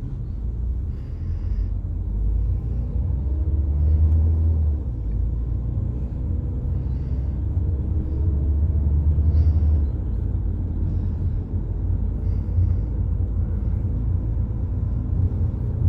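Car interior drone while driving: a steady low engine and road rumble, swelling louder around four seconds in and again near the middle.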